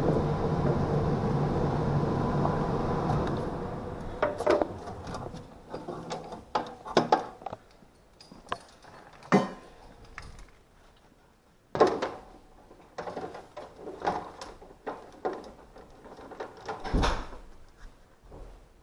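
A steady machine hum with a held tone fades out over the first four seconds. After that come scattered knocks, clicks and rattles of handling, like a cabinet panel or door being opened and moved.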